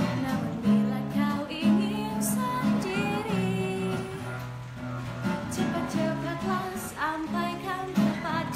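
Acoustic guitar strummed in steady chords, with a woman singing along in a wavering melody.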